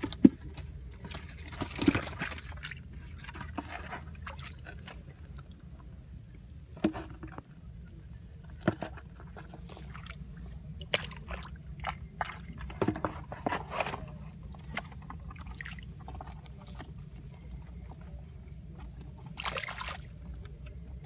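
Hands splashing and sloshing in a shallow muddy pool while grabbing small fish, in irregular splashes and splatters, over a steady low rumble.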